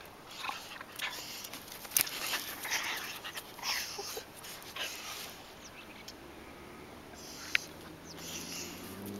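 Street dogs playing up close, breathing hard and scuffling against a person, in a run of short breathy noises. Two sharp clicks stand out, about two seconds in and near the end.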